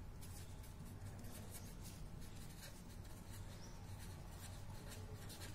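A pen writing by hand on paper, scratching in many short strokes as letters are formed, over a faint low hum.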